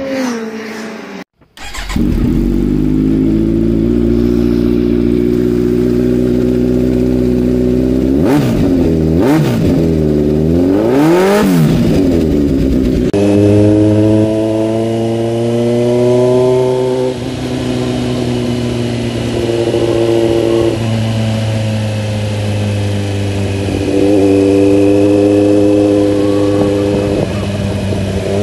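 Kawasaki Z900's inline-four engine through an Akrapovic exhaust. It runs steadily at first, then rises and falls in pitch several times in quick succession around the middle. After that it is heard while riding, its note stepping up and down with the throttle.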